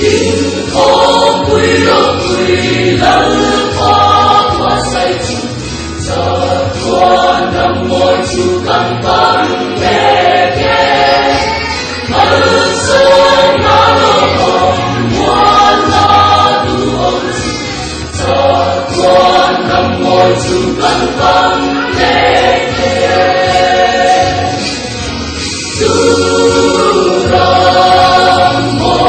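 A mixed choir of men and women singing a Mizo gospel song, in phrases of a few seconds with short breaks between them.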